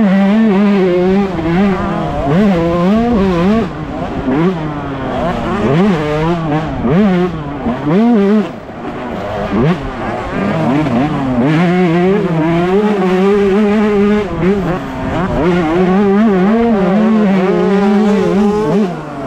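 Yamaha YZ125 two-stroke motocross engine at race pace, heard close from the rider's helmet camera: the revs rise and fall again and again, with longer spells held high in the second half. Another two-stroke bike running just ahead mixes in.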